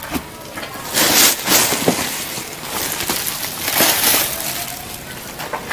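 Thin plastic shopping bag rustling and crinkling right against the microphone, with louder crinkles about a second in and again near four seconds.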